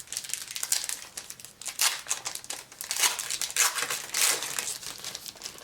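Wrapper of a trading-card pack crinkling and rustling irregularly as it is torn open by hand.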